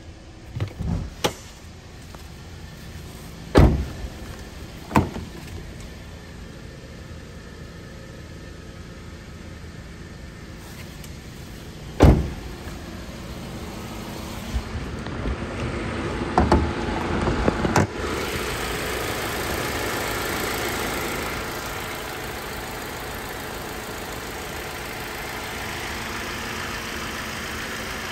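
A handful of sharp clunks from the car's doors and latches, then, from about two-thirds of the way in, a louder steady running sound: the Kia Optima's 2.4 L four-cylinder engine idling.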